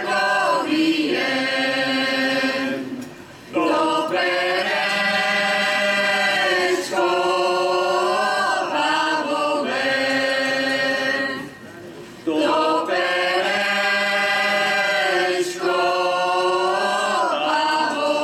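A Slovak folk vocal group, mostly women's voices, singing together in long held phrases, with short breaks between phrases about three seconds in and again about twelve seconds in.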